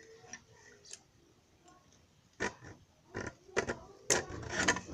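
Scooter clamp being worked off the bars: irregular clicks and knocks of metal parts being handled. They are sparse at first and come thicker and louder over the last second or so.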